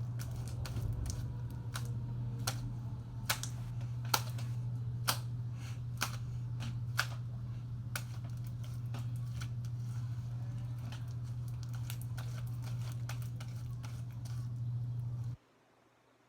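Sticky, activated slime being kneaded and stretched by hand, giving off irregular sharp clicks and pops, with the loudest ones between about two and seven seconds in. Under it runs a steady low hum that cuts out abruptly near the end.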